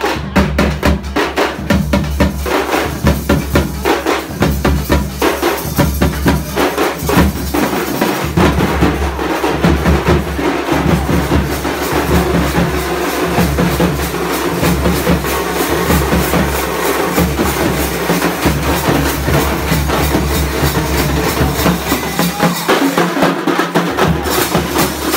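Music with a steady, driving drum beat and a deep bass line.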